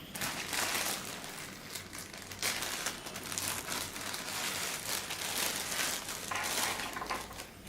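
Packaging crinkling and rustling in a continuous stream of small crackles as head-unit accessories such as the wiring harness and GPS antenna are handled.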